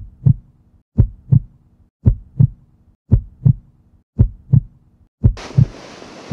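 Heartbeat sound effect: a low double thump, lub-dub, about once a second, six times, with a faint steady hum between the beats. About five seconds in a rushing noise joins under the beats.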